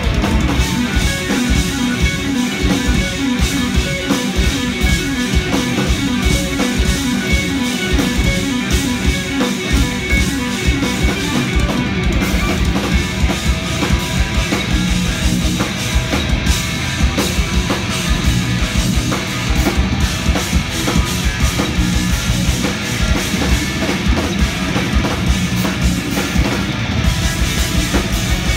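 Live instrumental progressive metal played loud by a band of two eight-string electric guitars and a drum kit, with fast, dense drumming under intricate rhythmic guitar riffs, recorded from the audience.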